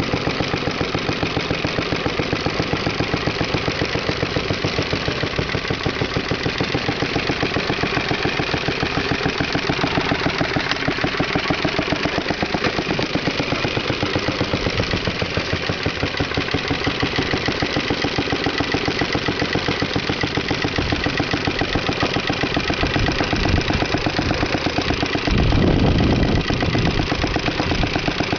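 Briggs & Stratton 5S single-cylinder four-stroke engine on a 1953 Toro Sportlawn lawnmower running steadily, with fast, even firing pulses. A louder low rumble rises for about two seconds near the end.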